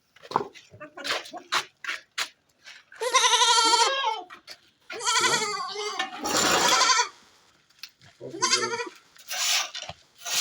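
Goats bleating, about four or five separate wavering bleats, one of them harsher and raspier, after a few seconds of scattered short clicks and knocks.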